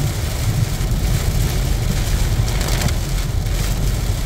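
Heavy rain beating on a car's windshield and roof, heard inside the cabin, over the steady low rumble of the car driving on a waterlogged road.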